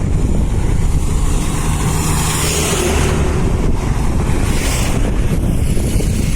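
Wind buffeting the microphone: a loud, irregular low rumble with hiss over it.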